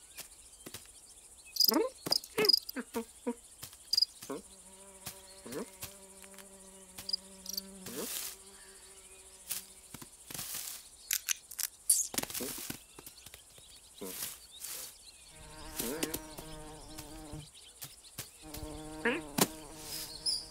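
Cartoon sound effects: an insect buzzing in two long, steady stretches, one early and one near the end, with short squeaks and clicks scattered between.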